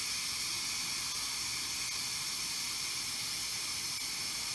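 Steam hissing steadily from the pressure-release valve of a Pampered Chef Quick Cooker electric pressure cooker during a quick release, as the built-up pressure vents after cooking.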